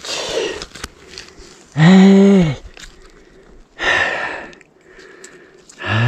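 A man's heavy breathing from exertion: a breath out at the start, a drawn-out voiced grunt about two seconds in, its pitch rising and then falling, and another breathy exhale near four seconds.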